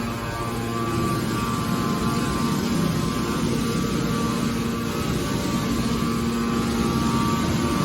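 A steady mechanical drone that does not change, with several constant humming tones over a rushing noise.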